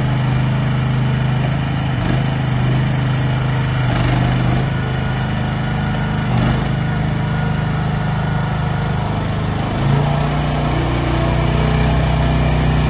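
Small petrol engine of an AGT QH12R mini excavator running steadily. Its pitch dips briefly a few times and rises about ten seconds in, holding higher from then on.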